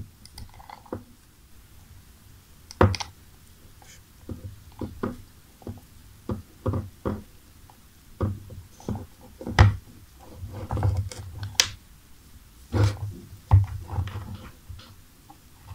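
Handling noise from fingers wrapping insulating tape around soldered wire joints on a charger cable: irregular rubs, clicks and soft knocks, with louder knocks about 3, 9.5, 11.5 and 13 seconds in.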